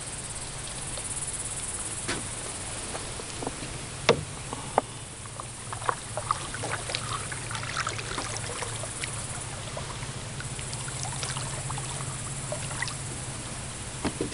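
Small boat being paddled: scattered knocks and clicks of the paddle against the hull and light water sounds, over a steady background of insects.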